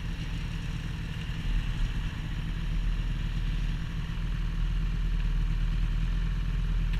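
A vehicle engine running steadily with a low rumble, getting a little louder a few seconds in.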